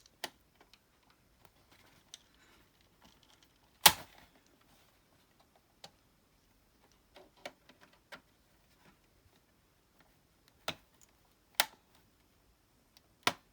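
Irregular sharp plastic clicks and snaps from prying at a stuck plastic piece of an Xbox 360 E console's case, with one loud snap about four seconds in and several more near the end.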